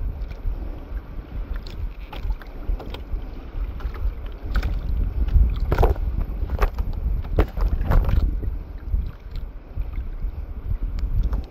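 Wind rumbling low on the microphone in a small open boat, with several short clicks and taps in the middle as gloved hands handle fishing line and a lure.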